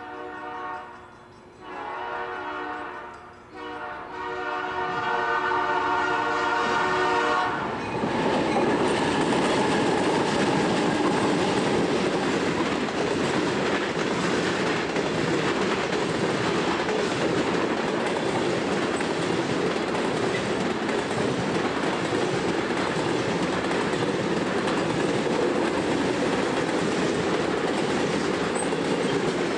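Diesel locomotive air horn sounding a chord in three blasts, the last one the longest, from the SD60 leading a Soo Line unit grain train. About eight seconds in, the horn gives way to the train rolling past, a steady rumble and clatter of steel wheels on rail under loaded covered hoppers.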